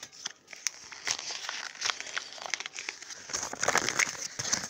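Plastic toy packaging crinkling and crackling as it is handled and unwrapped, getting busier and louder near the end.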